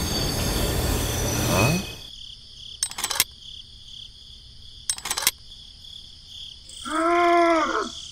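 Steam-train sound effect, a loud hiss, cutting off about two seconds in. A steady cricket chorus follows, with two brief clusters of clicks, and near the end a short pitched call that rises and then falls.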